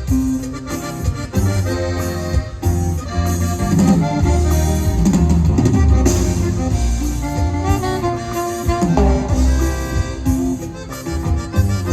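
Norteño band playing, a button accordion carrying the melody over drum kit and bass.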